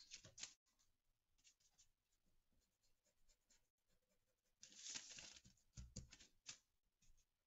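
Faint scratchy rubbing of a paintbrush and a paint-stained rag on paper, in short strokes, as wet paint is blotted off to correct a mistake. A louder stretch of rubbing comes about five seconds in.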